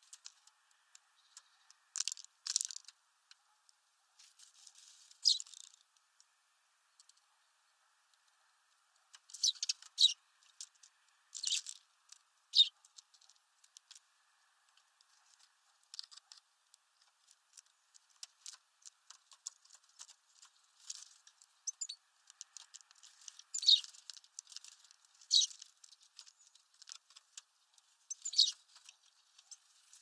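Eurasian tree sparrows pecking and cracking sunflower seeds on a feeder tray: irregular light taps and crackles that come in short clusters.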